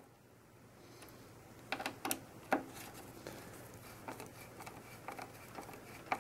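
Small clicks and scrapes of a screwdriver turning the CPU cooler's mounting screws snug through a metal backplate. A few sharper clicks come about two seconds in, then softer scattered ticks.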